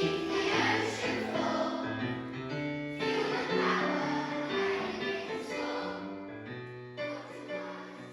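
Choir singing with piano accompaniment, gradually getting quieter toward the end.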